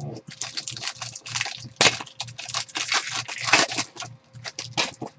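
Foil wrapper of a Topps Chrome trading-card pack crinkling and tearing open by hand, a dense run of irregular crackles.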